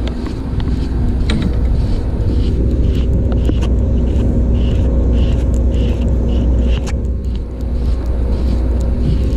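Steady low drone of a small boat's idling motor, with wind on the microphone. From about two seconds in, a soft rhythmic whir of a baitcasting reel being cranked, about two turns a second, as a fish is reeled up.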